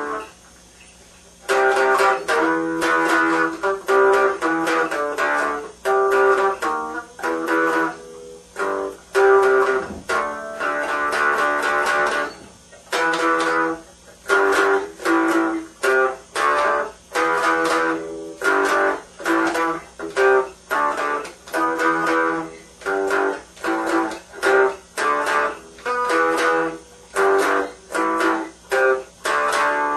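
Electric guitar played through a tiny homemade amplifier built into a cardboard shotgun-shell box with a computer speaker: a run of short strummed chords with brief gaps between them, after a pause of about a second near the start.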